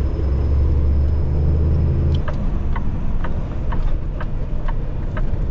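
Semi-truck engine and road noise heard from inside the cab. A strong low engine drone falls away about two seconds in, and after that a regular light ticking comes about twice a second.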